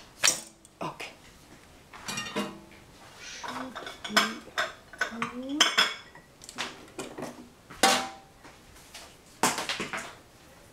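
Dishes, pans and cutlery clattering and clinking on a kitchen counter while it is tidied up: a string of sharp knocks and clinks, a few ringing briefly.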